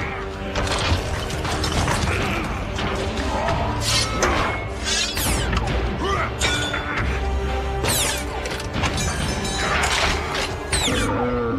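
Giant-robot fight effects over orchestral film music: metallic clanking and ratcheting mechanisms, crashing impacts, and several quick rising and falling mechanical whines.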